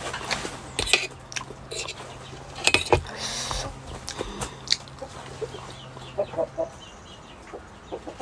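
Close-up eating sounds of pork momos being bitten and chewed, with scattered sharp clicks and a few short noisy bites.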